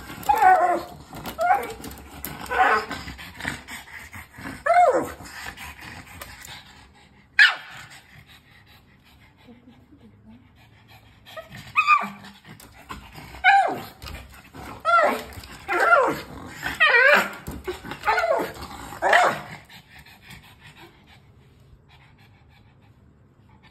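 A pug giving short, high, whining barks, each call falling in pitch. They come in two runs with a lone call between them, and stop a few seconds before the end.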